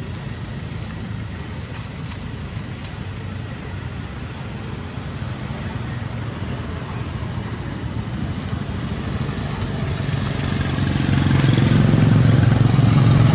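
Steady outdoor background noise with a low engine drone that grows louder about ten seconds in, like a motor vehicle coming closer.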